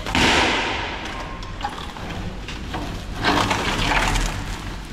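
Handling noise from a cured carbon-fibre test strip being picked up and flexed by hand: a sudden rustling burst that fades over about a second, then another rustle about three seconds in.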